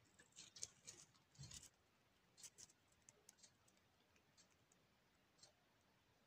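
Faint small clicks and rustles from a Djungarian hamster nibbling pancake and moving in hay bedding. There is a close cluster of them in the first two seconds, then only scattered single ticks.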